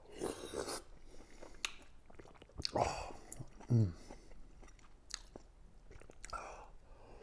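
A person chewing and biting food close to the microphone, with small sharp clicks. About three seconds in there is a short vocal sound that falls in pitch.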